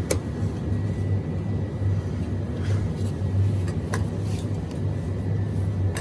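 Steady low hum and rumble of a store's background noise, with a few faint clicks.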